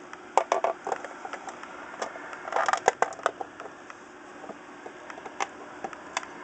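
Hands handling a Tele-Vision flip clock's case: scattered light clicks and knocks, with a denser run of clicking and scraping about two and a half to three seconds in.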